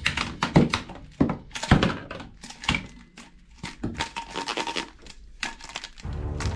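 Plastic toy guns knocking and clattering against each other as they are handled and laid back into a cardboard box full of toy guns: a run of irregular knocks. Background music comes in near the end.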